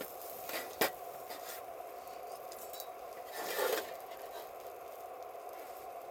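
Campfire cooking: a steady hiss of fire and boiling, with one sharp tap just under a second in and a short scrape a little past halfway.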